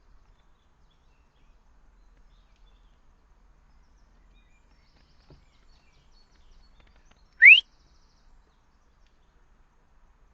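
A single short, rising whistled bird call, loud against faint outdoor background, about seven and a half seconds in.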